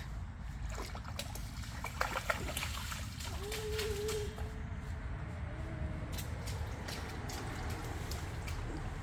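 A small child splashing in a rainwater puddle: scattered small splashes and trickling water over a steady low rumble.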